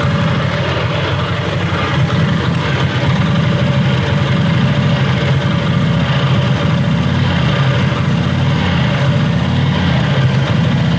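1942 Harley-Davidson UL flathead V-twin idling steadily, just after its first start following restoration, running a little louder from about two seconds in.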